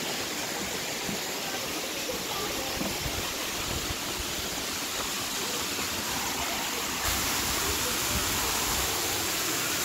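Waterfall rushing in a steady roar of water, a little louder from about seven seconds in.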